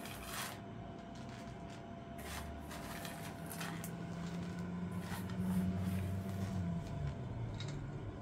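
Raisins tipped and scraped out of a small steel bowl into flour in a steel mixing basin, with a run of light clinks and rustles, then a hand working through the flour. A low hum runs under it through the middle.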